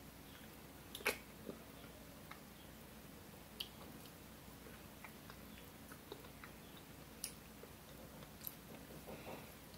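A child chewing slices of kiwi fruit: faint wet mouth sounds and squishes with scattered sharp clicks, the loudest about a second in.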